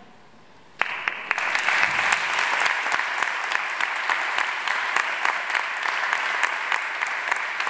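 Audience applauding: after a brief hush, the clapping breaks out suddenly about a second in and keeps going steadily.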